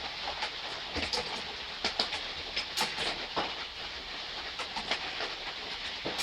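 Soft rain falling as a steady hiss, with irregular drops ticking sharply on a hard surface close by.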